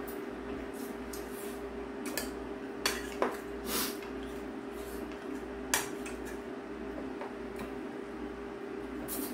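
Stainless-steel spoon clinking and scraping against a ceramic rice bowl while scooping rice: a few sharp clinks, the loudest about three seconds and six seconds in, over a steady low hum.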